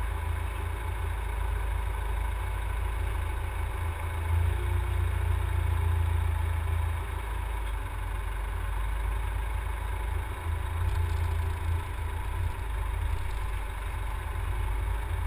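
Vehicle engine and road noise heard from inside the moving vehicle: a steady low rumble that swells a little about four to seven seconds in.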